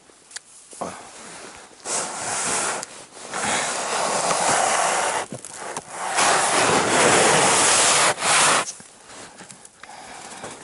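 Loaded plastic fishing sled dragged by a rope up through snow, its hull scraping and hissing over the snow in three long pulls of a couple of seconds each, the last the loudest.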